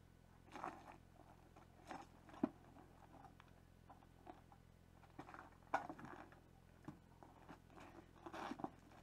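Faint crunches and scrapes from boots on the ground and a fallen, loaded motorcycle being handled as the rider tries to lift it. A sharp knock comes about two and a half seconds in.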